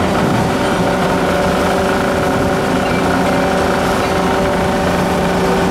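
A steady engine drone with a constant hum of several fixed tones, not changing in speed.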